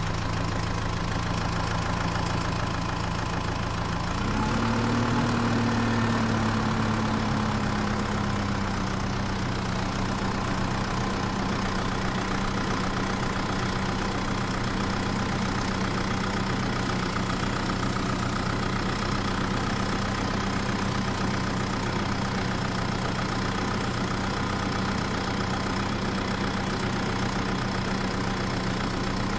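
Vehicle engine idling steadily. About four seconds in it revs up, then eases back to a steady run.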